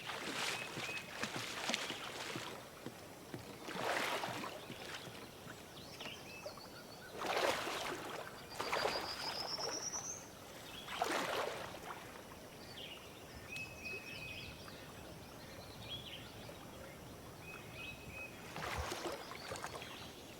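Lake water splashing in a few separate swishes several seconds apart, from a swimmer's strokes, with small birds chirping and one rising trill about halfway through.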